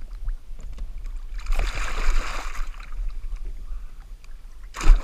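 Water splashing and sloshing beside the kayak as a jack crevalle is held in the sea for release, heard with the microphone at and just under the surface. A rush of splashing comes about one and a half seconds in, and a short sharp splash, the loudest moment, near the end.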